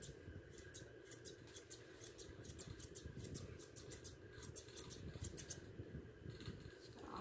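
Steel grooming shears snipping through a standard poodle puppy's dense coat in quick, even cuts, about four or five a second, stopping about a second and a half before the end.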